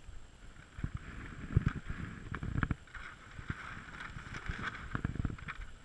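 Wind buffeting a camera microphone outdoors, in irregular low rumbles and gusts with a few knocks, and no engine clearly running.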